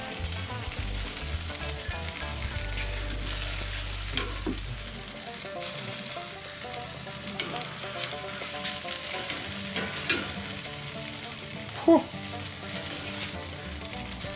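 Bacon-wrapped spring rolls sizzling on a hot grill grate, a steady hiss of rendering bacon fat. Metal tongs click against the grate now and then, with one sharp, loud clack about twelve seconds in.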